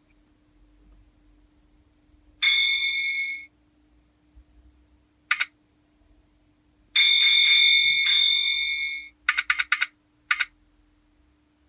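Signal box bell sound effects played through a small novelty-card sound module: a bell rings for about a second, a short click follows, then a longer ringing of about two seconds that is struck afresh partway through, then four quick strokes and one more near the end. A low steady hum lies underneath.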